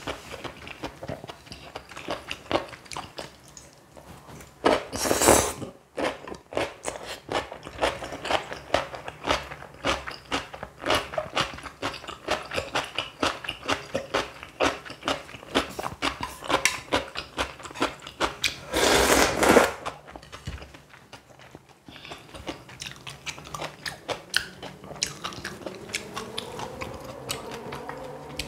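Close-miked crunching and chewing of crisp stuffed cucumber kimchi, made up of many irregular crunches. Two louder rushing noises, each about a second long, come about five seconds in and again near twenty seconds.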